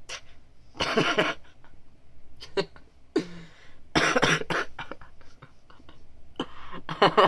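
A boy's short vocal bursts into his cupped hands, a loud one about a second in and another about four seconds in, then a quick run of short ones near the end.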